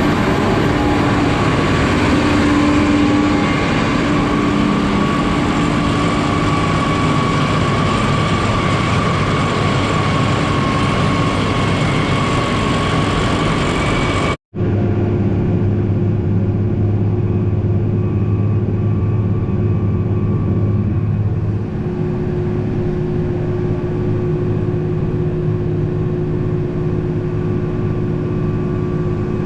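Heavy farm machinery engines running steadily. About halfway through the sound cuts abruptly to a more muffled stretch of steady machinery noise with a low hum.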